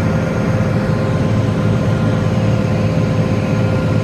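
Large farm tractor's diesel engine running at a steady speed, a deep even hum with a thin steady whine above it.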